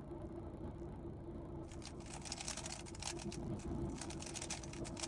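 Rubik's cube being turned quickly by hand: a rapid run of light plastic clicks and scrapes, starting a couple of seconds in, over a steady low hum.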